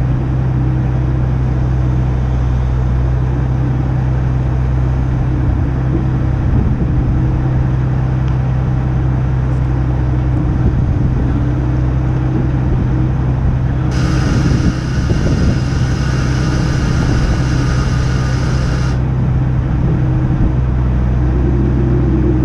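A crane's engine runs with a steady low rumble. About halfway through, a high-pitched whine comes in, lasts about five seconds, and cuts off sharply.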